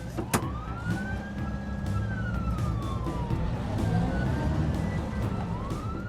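Police van siren wailing in slow rises and falls over a low engine rumble, with a sharp click about half a second in.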